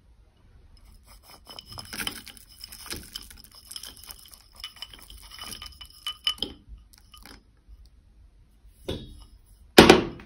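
A metal spoon scraping and clinking against ceramic bowls as granola clusters are spooned out, with a ringing clink now and then. Near the end there is a softer knock, then one sharp, loud clink of the spoon or bowl.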